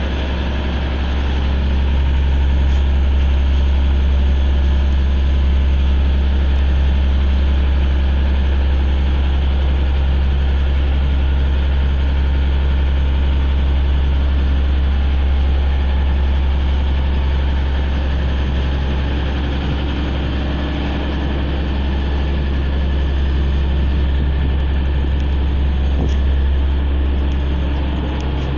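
Claas Dominator 76 combine harvester's diesel engine running steadily at a low, even pitch as the combine drives slowly away.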